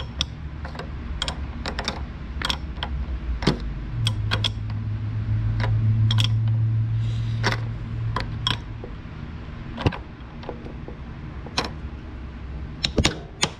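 Hand tools clicking and tapping on metal at irregular intervals as a fastener on the horn mount is tightened, over a steady low hum; a louder low hum swells for about four seconds in the middle.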